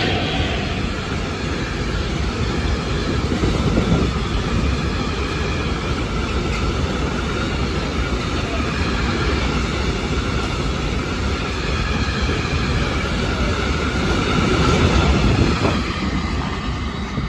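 Freight train's long rake of hopper wagons running past at speed: a steady, loud rumble of steel wheels on the rails.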